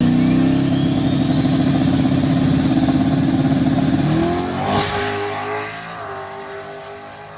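Car engine running hard at high revs, with a high whine slowly rising in pitch; about four seconds in the engine and whine climb sharply in pitch, then the sound fades away, like a car accelerating off.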